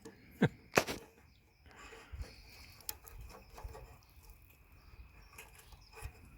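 Two sharp clicks close together near the start, then a quiet stretch with a few faint taps and clicks from small parts being handled.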